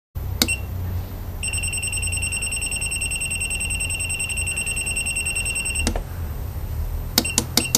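Digital soldering station's buzzer beeping as its buttons are pressed: one short beep, then one long steady high-pitched beep of about four and a half seconds while a button is held and the set temperature climbs, then four quick beeps with clicks near the end.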